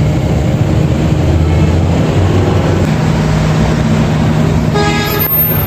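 Kayo T2 dirt bike's engine running steadily, with a brief higher tone near the end.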